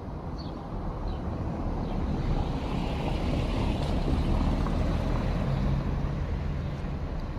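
A motor vehicle passing close by: engine rumble and road noise swell to a peak about four seconds in, then ease off. A few short bird chirps come near the start.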